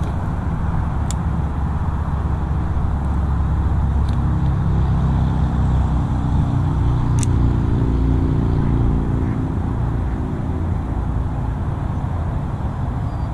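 Low rumble of a motor vehicle's engine, swelling to its loudest through the middle and easing off toward the end, with a few faint clicks.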